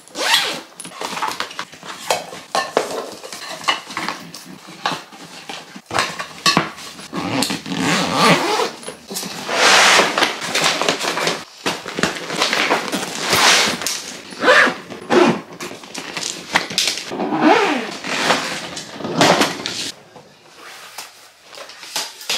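Suitcase packing: rustling clothes and fabric, with small knocks and clatter as plastic toiletry bottles and bags are handled and set in the case. The sounds come in quick irregular bunches, with louder rustling spells now and then.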